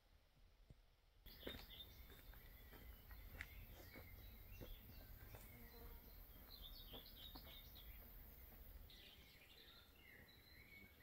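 After about a second of near silence, faint outdoor ambience with a low steady rumble and small birds chirping now and then.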